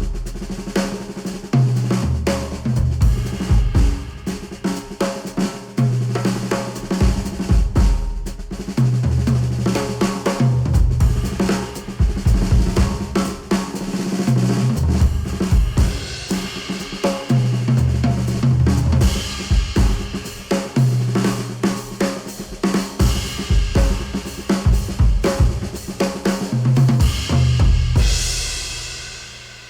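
Music with a drum kit (snare, kick, hi-hat and cymbals) over a deep repeating bass line, played through an AUNE AR5000 headphone and picked up by microphones at the earcups. It fades out near the end.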